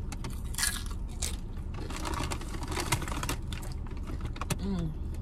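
Crunching and chewing of a tortilla chip loaded with burrito-bowl food: a bite about half a second in, another after a second, then a run of close crunchy chewing.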